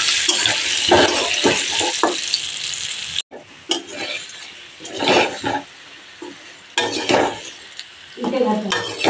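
Parboiled potato pieces frying in hot mustard oil in a kadai, sizzling loudly while a metal spatula scrapes and turns them against the pan. A little over three seconds in the sizzle cuts off abruptly, and quieter frying with a few separate spatula scrapes follows.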